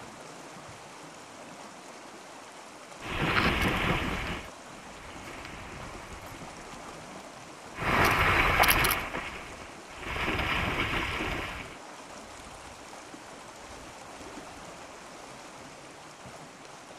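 Splashing as a brown bear runs through shallow water, in three noisy bursts of a second or two each, over a steady hiss of wind and surf.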